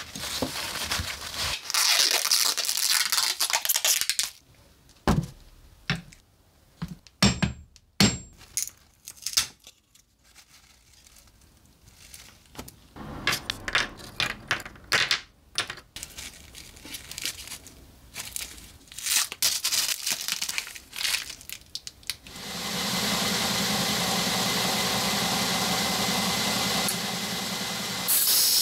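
Paper towel rustling, then the damaged wooden handle of a yanagiba knife being split and pried off the tang, with scattered sharp cracks and knocks. About three-quarters of the way through, a belt grinder is switched on and runs steadily with a hum.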